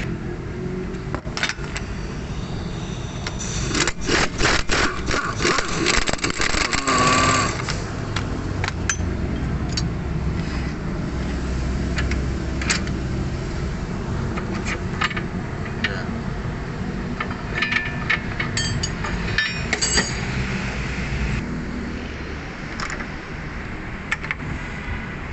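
Metal tools clinking and clanking on the car's front suspension, with a dense run of sharp knocks a few seconds in and scattered clicks after, over a steady low rumble.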